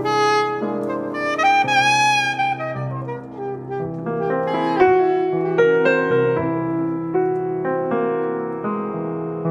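Instrumental background music with piano and a held melody note that wavers in pitch about two seconds in.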